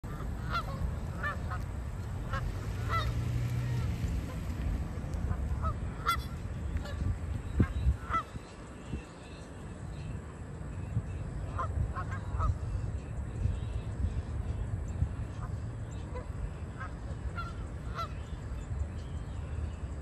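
A flock of Canada geese honking: many short calls scattered irregularly throughout, over a steady low rumble.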